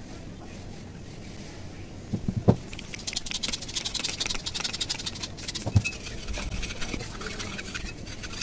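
Compressed-air blow gun blasting into the oily, opened head of an overlock sewing machine: a hiss in rapid spurts that starts about three seconds in. Before it come a couple of sharp knocks from handling the machine and tools, the loudest about two and a half seconds in.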